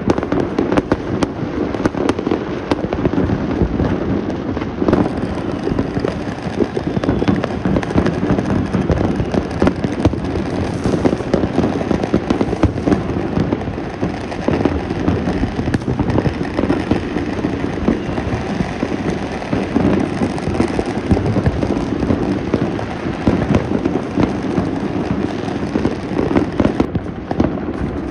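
Many fireworks and firecrackers going off at once in a dense, unbroken barrage of crackling and popping, with frequent sharper bangs.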